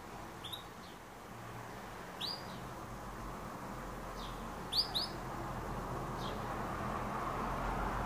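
Caged domestic canary giving short single chirps, about six of them a second or so apart, the loudest a quick pair about five seconds in, over a steady background hum.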